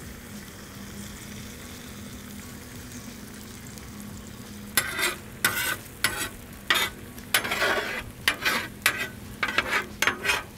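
Eggs sizzling on a hot steel flat-top griddle. From about five seconds in, a metal spatula scrapes and chops across the griddle surface in quick repeated strokes as the eggs are scrambled.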